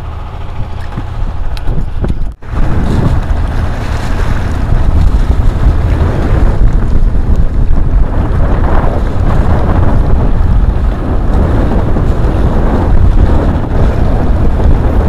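Wind buffeting the camera's microphone in a loud, rough rumble over choppy sea washing against a concrete breakwater. It starts abruptly after a brief dropout about two and a half seconds in.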